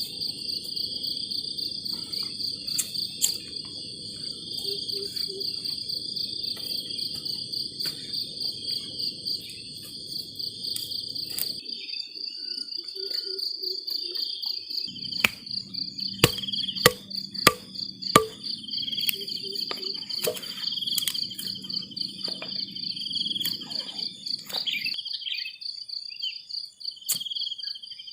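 Night chorus of crickets or similar insects chirping steadily in fast, high pulses, with a low rumble underneath that drops out for a few seconds twice. A handful of sharp clicks come a little past the middle.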